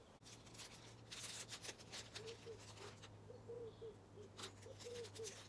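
Faint rustling and crinkling of small doll-accessory packaging handled by hand, in a few short clusters.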